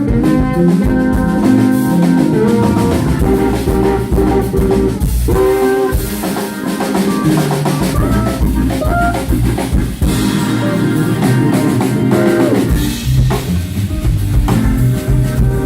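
Live band playing: drum kit with snare rimshots and bass drum under a steel guitar playing sliding notes, with bass in the low end.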